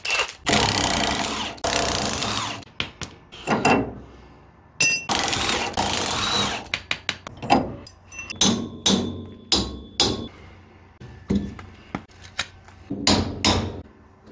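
Milwaukee cordless impact wrench hammering on the truck's suspension bolts in three long runs in the first seven seconds. After that come a string of short, sharp metal knocks and clanks as the parts are worked loose.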